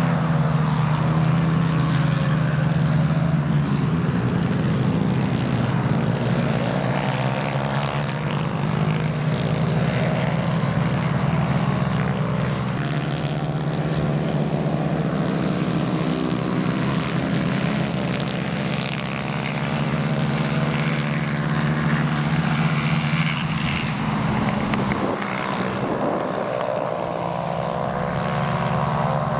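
Several small racing kart engines buzzing continuously around the track, their pitch rising and falling as they accelerate and lift off, over a steady low drone.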